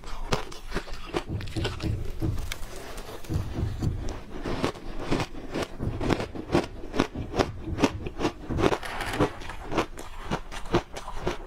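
Crunchy ice being bitten and chewed close to the microphone: a dense, irregular series of sharp crunches.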